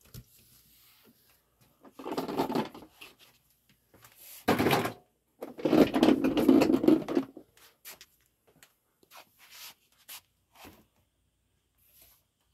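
Handling noise: scattered clicks and knocks, a sharp knock about four and a half seconds in, and a louder rustling scrape lasting about two seconds soon after.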